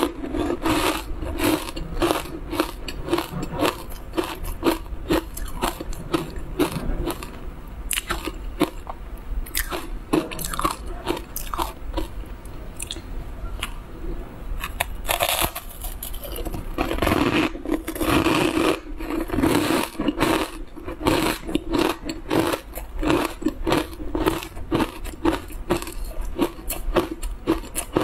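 Close-miked crunching and chewing as a person bites into a crumbly green powder-coated block, with many short, crisp crunches one after another.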